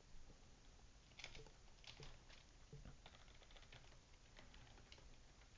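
Faint computer keyboard typing: scattered single keystrokes at an irregular pace.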